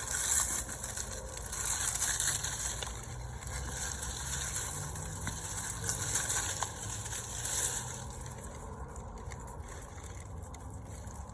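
Rustling, crackling and scraping as a frost-killed potato plant is pulled up out of the soil, busiest for the first eight seconds or so, over a steady low rumble.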